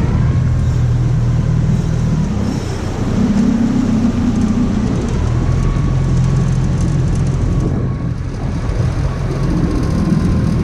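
A boat's engine running steadily, its pitch rising for a couple of seconds about three seconds in before settling back.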